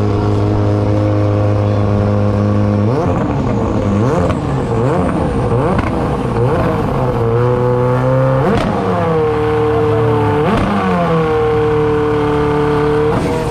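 Modified 2022 Subaru WRX's turbocharged flat-four engine running at a steady raised idle, then revved repeatedly, its pitch swooping up and falling back with each blip of the throttle.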